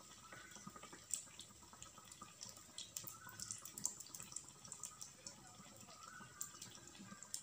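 Malpua batter deep-frying in hot oil in a kadai: the oil sizzles quietly and steadily, with frequent small crackles and pops.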